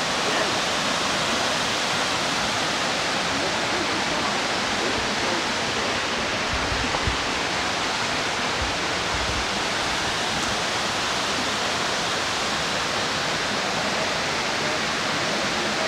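Steady rush of a waterfall cascading over rocks into a pool.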